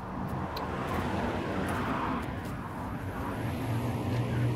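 A motor vehicle's engine running close by, a low steady hum that grows strongest near the end.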